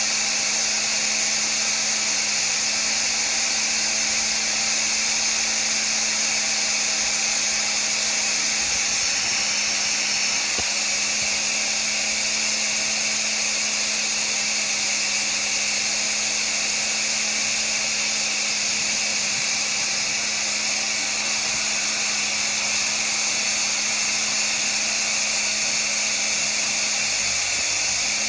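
Electric motor of an upholstery-cleaning machine running steadily, a constant hum under a loud high whine and hiss.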